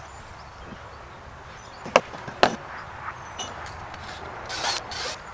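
Two sharp wooden knocks about half a second apart as playset lumber is handled and fitted to the frame, followed by a few softer scrapes and rubs of wood.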